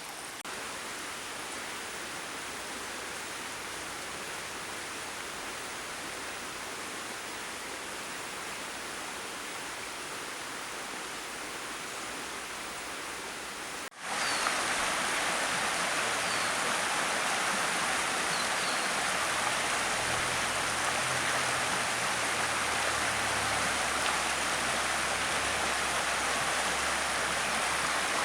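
Steady rush of flowing river water. It breaks off for an instant about halfway through, then comes back louder and brighter.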